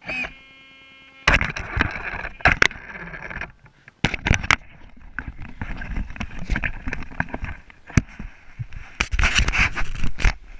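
Traxxas Slash RC truck driving over rough ground: its motor runs under scraping and crunching from the tyres, with many sharp clicks and knocks. It goes quiet briefly about three and a half seconds in, then carries on.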